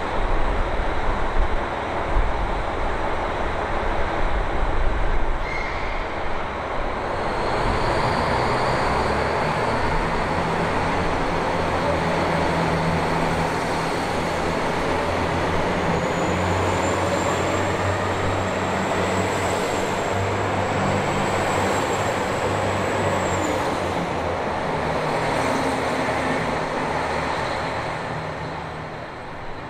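KiHa 261 series 0 diesel multiple unit pulling out of a station, its diesel engines working up through the notches with the rumble of wheels on rail. A thin high whine joins in for several seconds past the middle, and the sound eases off near the end as the train draws away.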